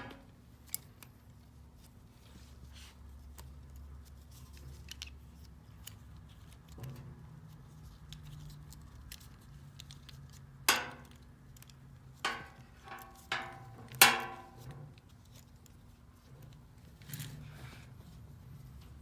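Strap tensioning buckle and hook being handled: scattered light clicks and rattles, then a few sharper metal clinks that ring briefly, the loudest about fourteen seconds in.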